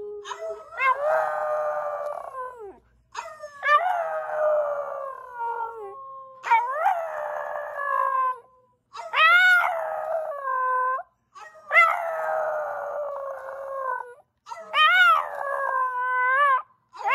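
West Highland white terrier howling: about six long howls in a row, each a couple of seconds long and wavering in pitch, with short breaks between them.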